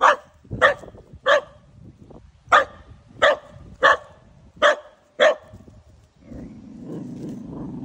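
A corgi barking in a string of eight short, loud barks at uneven spacing over about five seconds, then a low steady rumble for the last two seconds.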